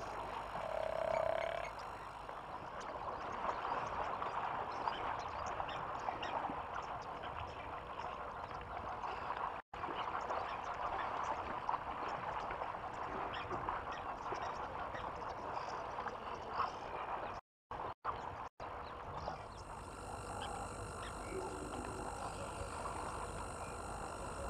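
A dense, steady chorus of frogs croaking. The sound cuts out completely for a moment twice.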